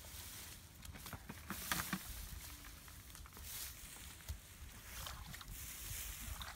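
Hands groping in shallow muddy water among grass, making irregular small splashes, squelches and rustles, with a louder splash about two seconds in.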